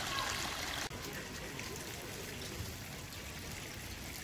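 Steady rushing noise of running water, with an abrupt cut to a slightly quieter stretch about a second in.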